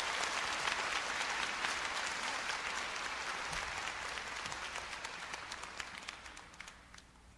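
Concert audience applauding, the clapping slowly dying away near the end.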